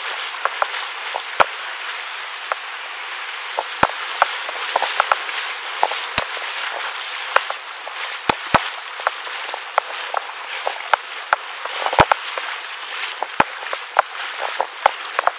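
Rushing floodwater as a steady hiss, broken by many irregular sharp clicks and knocks, one much louder about three-quarters of the way through.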